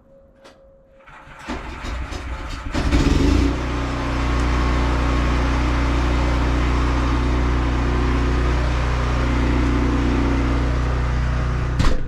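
An engine cranks and starts, revs briefly as it catches, then settles into a steady idle. A sharp click comes near the end.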